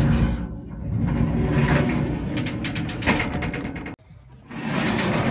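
Armorgard TrekDror van drawer running on its runners, a rumbling rattle. It stops abruptly about four seconds in and starts again shortly after.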